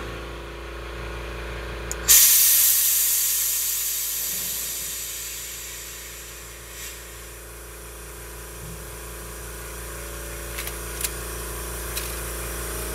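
A sudden rush of compressed air from the coach's air brake system about two seconds in, as the parking brake is worked. It fades away over several seconds into a fainter steady hiss of escaping air, the sign of an air leak. A low steady hum runs underneath.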